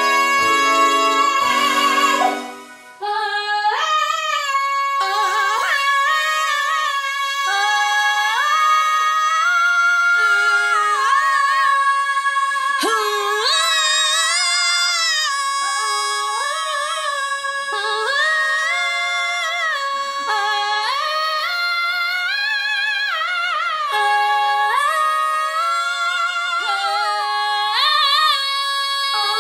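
Several women belting the climax of a musical-theatre song in harmony. One high note is held unbroken while other voices move around it with vibrato. An instrumental chord passage opens it and cuts off about three seconds in.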